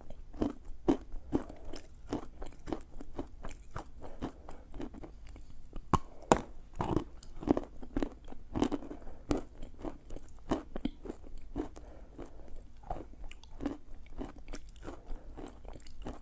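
Bars of chalk being bitten and chewed, a dry crunch roughly every half second, with a few louder bites near the middle.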